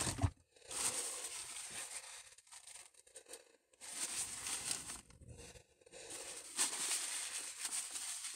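Packaging being torn open and crinkled, likely the wrapper of the next ice cream. It comes in three long stretches of rustling with short pauses between.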